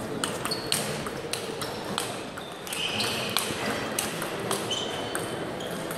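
Table tennis rally: the ball clicks sharply and irregularly off bats and table, over and over. A few brief high squeaks from players' shoes on the sports-hall floor come in about halfway through.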